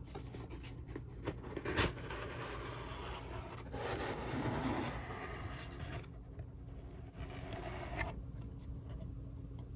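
Cardboard box being opened by hand: cardboard scraping and rubbing, with a sharp click about two seconds in and a louder stretch of scraping from about four to eight seconds.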